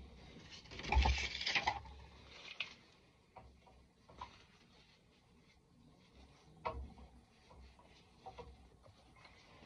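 Cloth rag rubbing over a freshly soldered copper pipe joint: a rustling swish about a second in, then scattered light clicks and taps.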